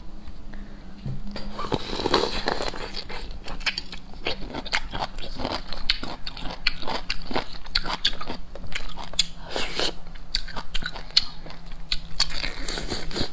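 A person eating seafood at close range: biting and chewing, with many irregular crunches and cracks that start about a second and a half in.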